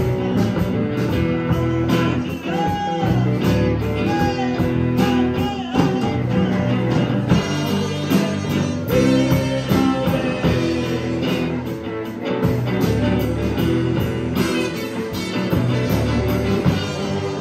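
Live rock band playing an instrumental passage: electric guitars, bass guitar and drum kit, with a trumpet playing a lead line over them.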